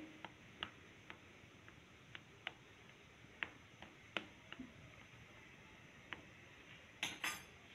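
Faint, irregularly spaced light ticks of a fork's tines pricking pizza dough in a baking pan, about a dozen over several seconds, with a short louder noise near the end.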